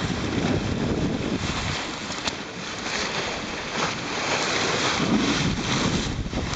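Wind buffeting the microphone over the rush of water along a sailboat's hull at the bow. The low wind rumble eases after about two seconds, leaving a steady wash of water hiss.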